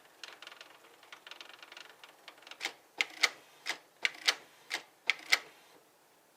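Canon Pixma MG2520 inkjet printer running a copy job: a faint mechanical whir, then about nine sharp clacks over some three seconds, several in quick pairs, from its paper-feed and print mechanism.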